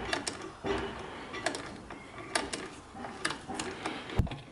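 Rear brake pedal of a Honda VTR1000 Firestorm pumped by hand to bleed the rear brake: sharp metallic clicks, often in pairs, about once a second.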